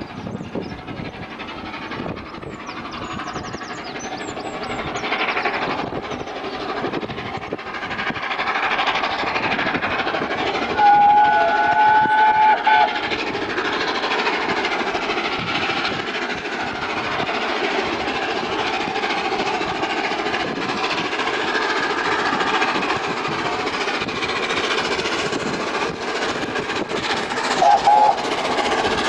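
Peppercorn A1 Pacific steam locomotive 60163 Tornado approaching with its train, the noise of the working engine and train building steadily louder. Its whistle sounds in a long blast about eleven seconds in and a short one just before the end.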